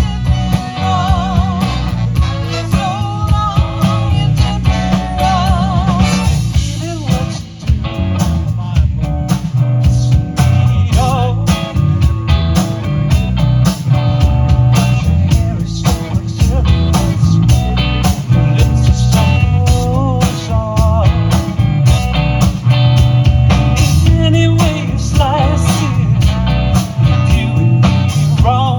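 Live band playing beach music: a steady beat of drums and bass under guitar and a wavering melody line.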